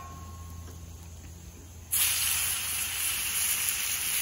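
Thin, flour-dredged filet medallions hitting a hot, oiled Camp Chef flat-top griddle: quiet at first, then about two seconds in a loud sizzle starts suddenly and keeps going.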